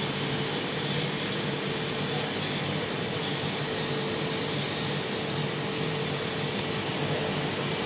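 Steady hum and air rush of a mortuary's ventilation and cooling machinery: an even hiss over a constant low drone, with no change in pace.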